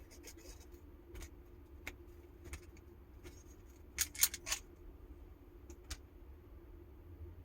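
Light scattered clicks and rattles of small tattoo parts being handled while a needle is picked out, with a brief cluster of sharper clicks about four seconds in, over a faint steady hum.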